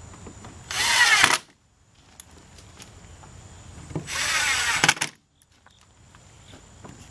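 Cordless drill-driver with a Phillips bit driving screws into a plastic radiator cover, run gently in two short spurts of about a second each, roughly three seconds apart.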